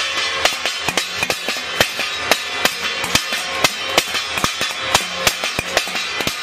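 Stainless steel plate beaten with a wooden rolling pin, sharp metallic clangs at an uneven two or three strikes a second, over a steady ringing din of more clanging from around.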